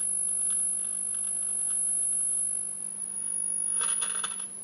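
Radialva Groom valve radio emitting a steady, very high-pitched whistle over a faint low hum, with a short run of clicks near the end. The whistle is a sign of instability (oscillation) in the set on its first power-up, which the restorer suspects comes from his home-made coils.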